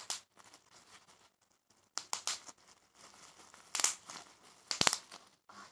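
Plastic bubble-wrap packaging crinkling as it is handled, in four short bursts, the sharpest near the end.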